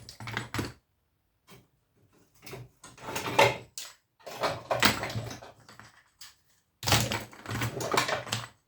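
Scrap aluminium-and-copper coils being handled and set down: several separate clattering knocks and scrapes with short quiet gaps between.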